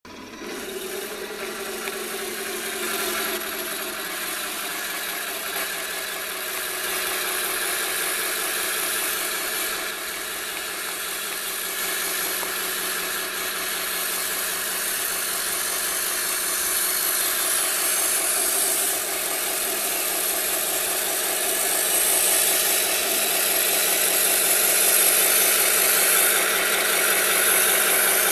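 Engine sound from the onboard sound unit of a 1:16 Tamiya RC Tiger I tank model running continuously, mixed with the model's drive and metal tracks working through deep snow. It grows gradually louder.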